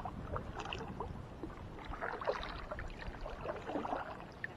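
Kayak paddle strokes in the water: irregular splashes and drips from the paddle blades.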